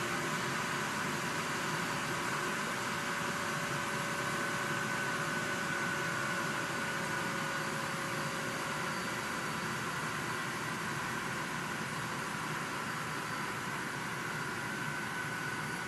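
Rack-mount storage and server cooling fans running: a steady rushing hiss with whining fan tones that drift slowly lower as the fans ease off a little.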